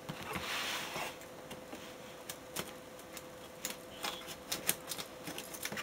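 A package being unboxed by hand: a short rustle of packing material at the start, then scattered light clicks and taps of cardboard and plastic being handled.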